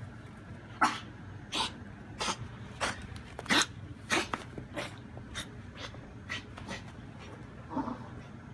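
Dog coughing in a rapid run of about a dozen short hacking coughs, roughly two a second, loudest in the first few seconds and weaker after. It is a cough the vet believed was kennel cough.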